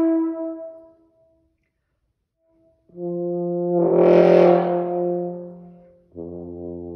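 French horn notes played to show the change between ordinary tone and flutter tongue. A note dies away near the start, then after a silence of about two seconds a lower note comes in, swells and fades. Another, lower note begins near the end.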